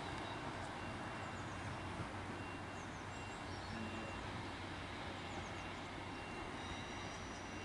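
Class 153 diesel multiple unit running steadily as it draws away, its engine a low, even hum, with a few faint bird chirps over it.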